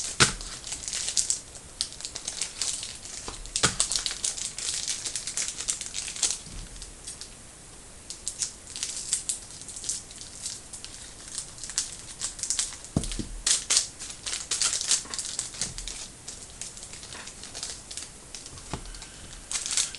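Wrappers of trading card packs being torn open and crinkled, an irregular crackling with a few sharper clicks as the cards are handled.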